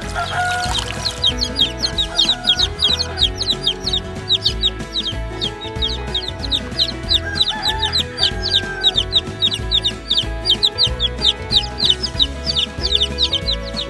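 Chickens clucking, with a fast run of short high calls, several a second, starting about a second in over background music.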